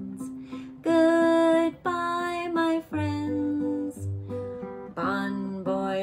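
Acoustic guitar strumming an instrumental break between sung lines, moving to a new chord every second or so.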